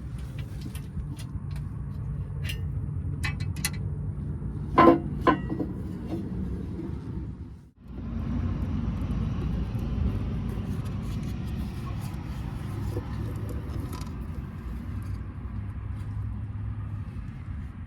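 Tractor diesel engine running steadily, with scattered clicks and two loud metallic clanks about five seconds in. Near the middle the engine noise breaks off briefly and picks up again.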